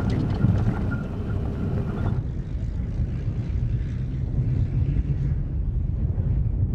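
Low, steady rumble of a truck engine, with a faint steady whine in the first two seconds. About two seconds in the higher sounds drop away, and a low rumble carries on.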